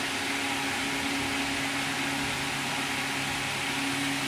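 A steady low hum with an even hiss from a running machine.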